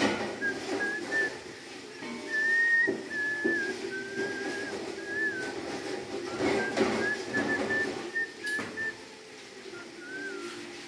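A person whistling a tune in long, wavering notes with short slides between them, and a few knocks now and then.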